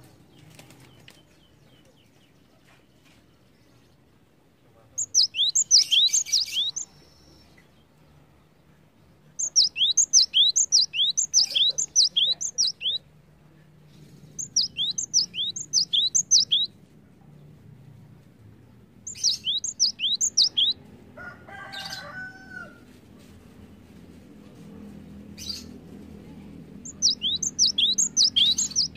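Cinereous tit (gelatik batu) singing in five bursts of rapid, repeated, high down-slurred notes, each burst lasting a couple of seconds. A brief, lower call of a different kind comes near the middle.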